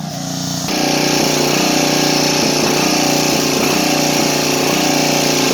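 Small replacement engine of a 1980s Craftsman riding lawn tractor running fast. It comes up to speed and gets louder about half a second in, and its pitch dips briefly and recovers again and again as the governor kicks in. The owner puts this down to the throttle being set slightly too high.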